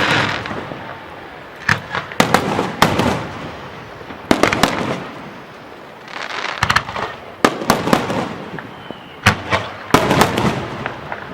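Fireworks display: aerial shells bursting in quick clusters of sharp bangs, a new volley every second or two, each trailing off in a noisy rumble.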